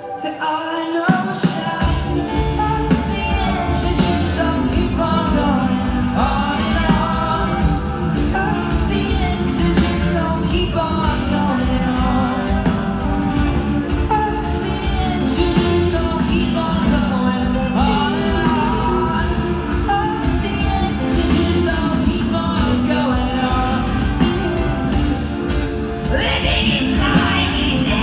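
Live rock band playing with singing, heard loud in a large hall; the bass and drums come in fully about a second or two in, under a wavering sung melody.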